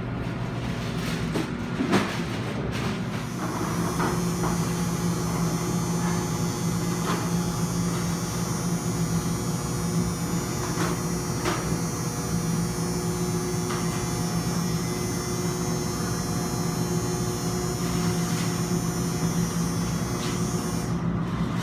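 A steady mechanical hum with a few faint clicks and knocks.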